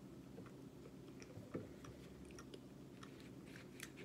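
Faint, close-up chewing of a mouthful of fast food, with scattered soft wet mouth clicks.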